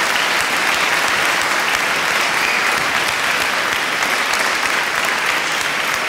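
Audience applauding steadily, a dense clapping with no other sound over it.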